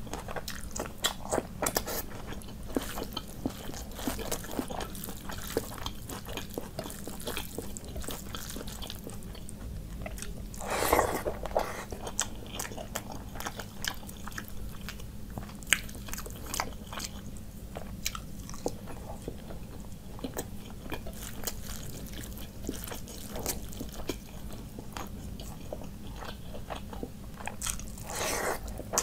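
Close-miked chewing and wet mouth sounds of a person eating rice and meat curry by hand, with frequent clicks and smacks, over a steady low hum. Two louder short noisy rushes stand out, about eleven seconds in and near the end.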